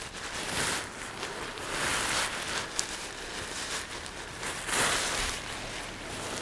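Nylon fabric rustling in three swells as a camping tarp and its bag are handled.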